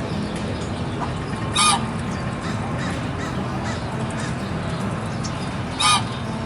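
A goose honking twice, two short loud calls about four seconds apart, over steady low background noise.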